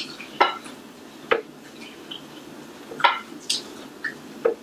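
Wooden chopsticks and a wooden spoon knocking against a bowl while stirring noodles: about six separate sharp clicks, spread irregularly.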